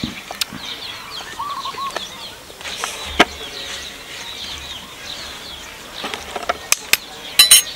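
Small birds chirping repeatedly in the background, with a few sharp clicks of a metal spoon tapping: a single loud tap about three seconds in and a quick run of taps near the end.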